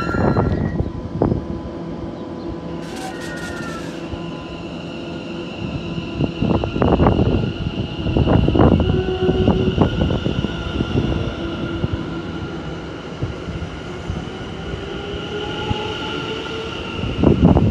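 London Overground electric multiple unit moving through the station, its traction motors whining with several steady tones that rise in pitch in the second half as it picks up speed. Loud rumbles of wheels on rails come and go, with a strong one near the end.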